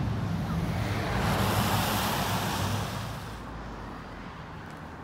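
Street traffic noise: a low rumble with a rushing swell, loudest about two seconds in, as a vehicle passes, then it drops away a little after three seconds to a quieter steady background.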